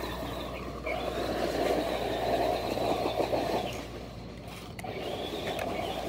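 Traxxas RC truck doing donuts on grass and dirt: its motor whines as it revs while the tyres spin and tear at the ground. The sound swells and fades as the truck circles, dipping about two-thirds of the way through.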